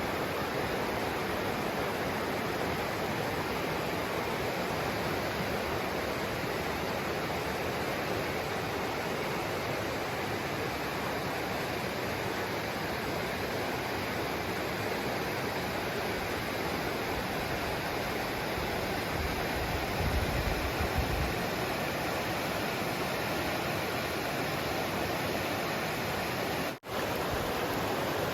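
Steady rush of a mountain creek's falling water, the Laurel Fork cascades. A brief low rumble comes about twenty seconds in, and the sound drops out for a split second near the end.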